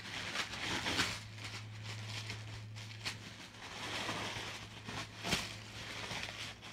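Rolled paper posters being unwrapped and unrolled by hand: irregular rustling and crinkling of the paper and its wrapping, with scattered sharper handling clicks. A steady low hum sounds underneath, strongest in the first half.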